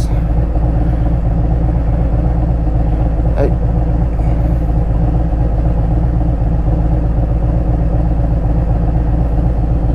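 Harley-Davidson Road Glide's V-twin engine running steadily at low throttle.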